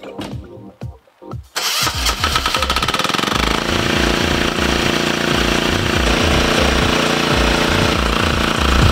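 Excavator's diesel engine starting abruptly about a second and a half in, then running loudly with an uneven low chug.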